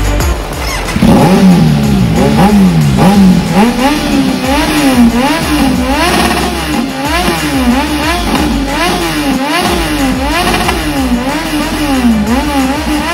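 Kawasaki Z900 inline-four through an Akrapovič full-system exhaust, revved over and over, the pitch rising and falling a little more than once a second and dropping away near the end.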